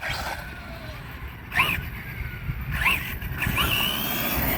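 Radio-controlled truck driving over rough ground: a steady rough rumble and rattle, with a few short squeaks about a second and a half in and again around three seconds in.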